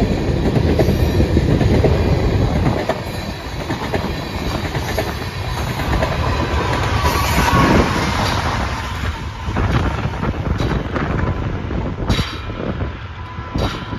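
Freight train's tank and hopper cars rolling past close by, a steady heavy rumble with the wheels clattering over the rail joints. The rolling noise thins near the end.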